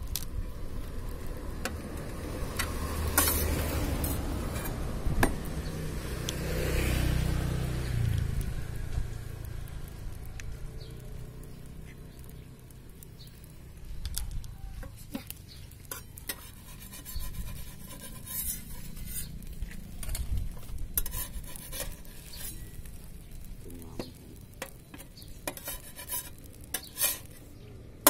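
Metal spatula scraping and tapping on a flat griddle where a rainbow pancake is cooking, with a faint sizzle and a run of sharp metallic clicks and scrapes. A low rumble underlies the first eight seconds or so.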